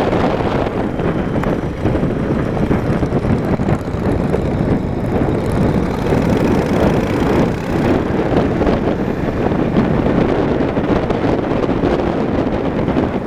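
Steady wind rush on the microphone of a moving motorcycle, with engine and road noise mixed in underneath.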